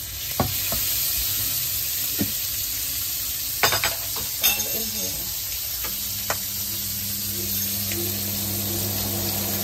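Shrimp with garlic and chili sizzling in oil in a nonstick wok, with a few knocks and scrapes of a wooden spatula in the first half. A low steady hum comes in about six seconds in.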